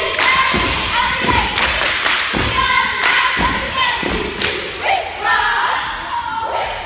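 Girls' cheer squad chanting in unison, with stomps and claps on the gym floor in a repeated beat.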